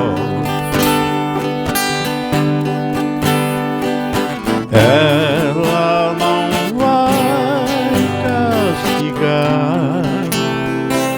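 Sertanejo music in an instrumental break: acoustic guitars strumming steady chords, with a lead melody line wavering in vibrato from about halfway through.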